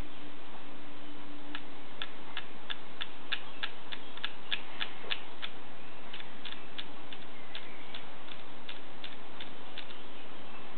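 Samsung NX10 camera clicking in quick, even runs of about three or four clicks a second as its rear control wheel is scrolled through the self-timer settings. There are two runs with a short pause between them, over a steady hiss.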